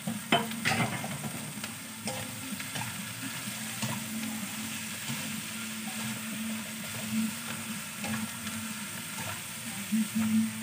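Minced chicken and shrimp with onions sizzling in a frying pan while a spatula stirs and scrapes through them, with a few sharp clicks of the spatula against the pan, the strongest about half a second in. A steady low hum runs underneath.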